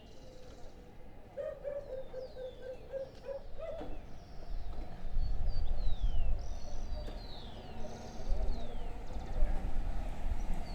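Street ambience: birds giving repeated falling chirps, with a quick run of about eight short calls a second and a half in. Low traffic rumble swells from about halfway and carries the rest.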